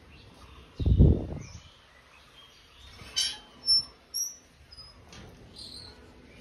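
Small birds chirping, with scattered short high calls. A single low thump about a second in is the loudest sound.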